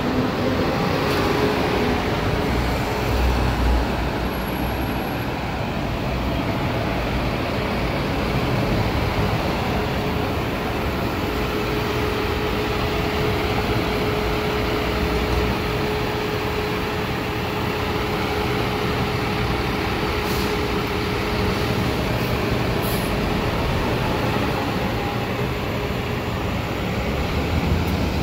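A 2019 Nova Bus LFS city bus with a Cummins diesel passes close by, then stands idling with its rear engine end near, over a steady whine.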